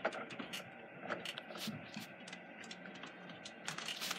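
Faint handling noise: a few light clicks and knocks scattered through, as cable plugs and equipment are moved about by hand.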